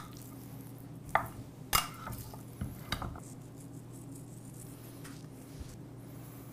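Four sharp knocks and clinks against a ceramic baking dish between about one and three seconds in, as raw bison shanks are handled and turned over in it, over a faint steady hum.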